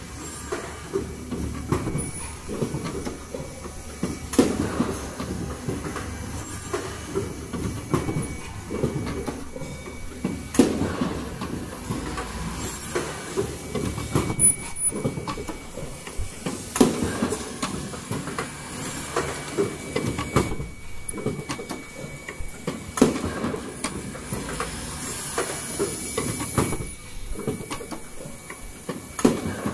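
Richpeace automatic N95 cup mask machine running, clattering mechanically with a loud clack about every two seconds.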